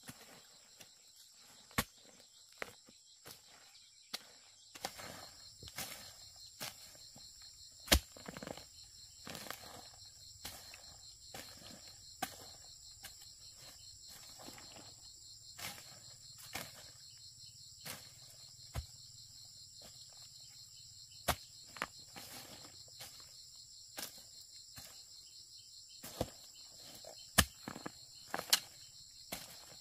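A steady high insect chorus of crickets or cicadas, with irregular sharp knocks and rustles over it. The loudest knocks come about eight seconds in and near the end.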